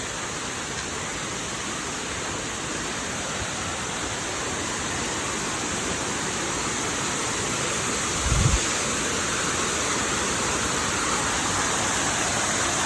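Steady rush of a waterfall's falling water, growing slowly louder, with one brief low thump about eight seconds in.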